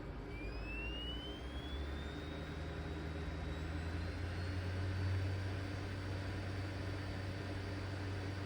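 ThinkPad T23's CD-ROM drive spinning up while it reads the install disc. A whine rises in pitch over the first couple of seconds, then holds steady over a low hum.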